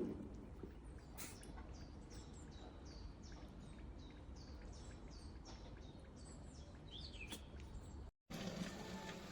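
Faint bird chirping: a quick series of short, falling high notes, a few a second, over a low steady background hum, with a couple of soft clicks.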